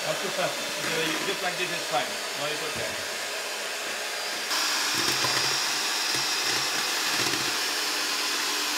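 Electric hand mixer running steadily, its beaters whirring in a stainless steel bowl. About halfway through it grows louder, with a steady high whine.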